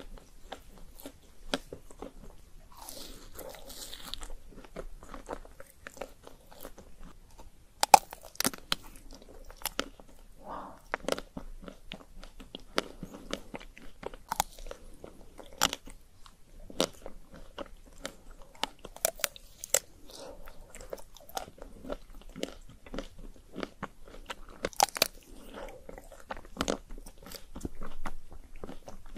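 Close-miked biting and chewing of a chocolate-coated ice cream bar with crushed nuts: the crisp chocolate shell cracks in many sharp, irregular crunches, the loudest about 8 seconds in.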